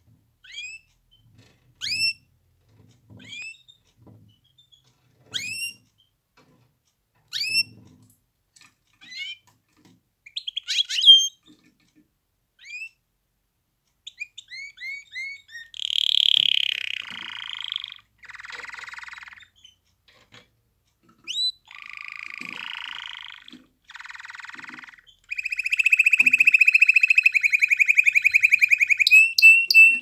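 Domestic canary singing. It starts with separate short rising call notes about once a second, moves into fuller song phrases with buzzy trills about halfway through, and ends in a long, loud rapid trill.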